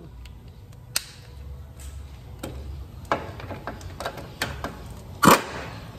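Irregular metallic clinks and knocks of hand tools and suspension parts being worked on a car's front wheel hub, with one louder knock near the end, over a low background hum.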